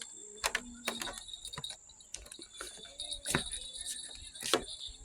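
Scattered light clicks and knocks, about five over a few seconds, over a faint steady high-pitched tone.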